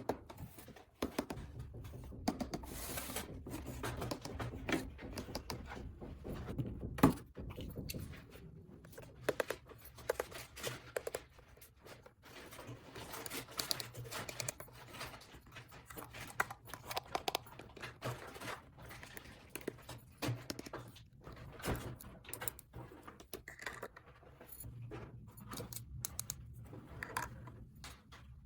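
Small plastic toy pieces being handled: many light clicks, taps and rattles at irregular intervals, over a low steady hum.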